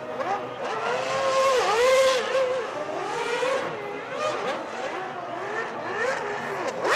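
Formula One V10 engines revving, several at once, their pitch rising and falling with the gear changes as the cars pass.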